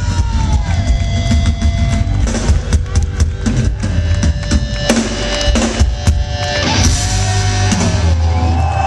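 Live rock band, drum kit to the fore with bass drum and snare, playing loudly; in the last couple of seconds it ends on a held chord with crashing cymbals.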